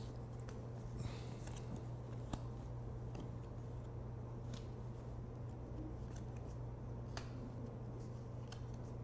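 A fortune-teller's deck of playing cards being handled and laid out on a cloth-covered table: scattered faint clicks and soft snaps of the cards, one a little sharper about two seconds in, over a steady low hum.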